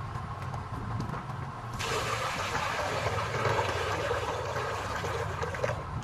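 Water poured from a clay pot splashing steadily into a shallow pool. The pour starts about two seconds in and cuts off shortly before the end.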